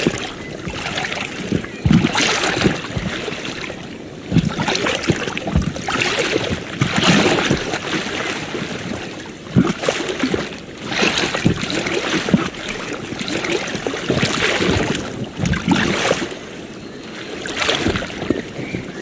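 Ocean waves washing and splashing on a shore. They come in uneven surges every couple of seconds, with short sharp slaps of water.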